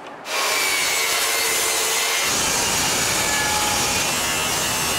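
Hitachi power saw's spinning blade cutting through board. It starts abruptly about a quarter second in, and the cut turns fuller and lower a little past two seconds in.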